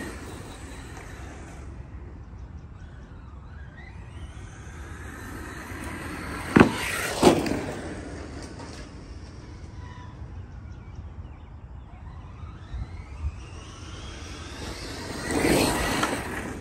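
Arrma Mojave 4S RC truck's electric motor whining as the truck drives around, its pitch rising and falling with throttle and passing. Two sharp knocks a little over half a second apart come around the middle. The whine swells loudest near the end as the truck runs up to the ramp.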